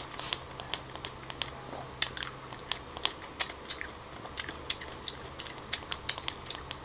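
Close-miked chewing of a bite of salted cashew apple: irregular crisp, wet clicks and crunches, a few each second.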